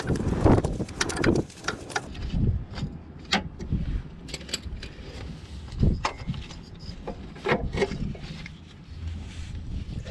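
Irregular clinks, clicks and knocks of hand tools and metal parts being handled during work on a car's auxiliary belt and tensioner, with a few duller thuds.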